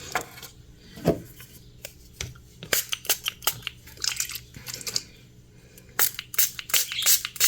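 Close handling of a potted plant and its pot: a run of short crackles, scrapes and rustles, with light knocks about one and two seconds in.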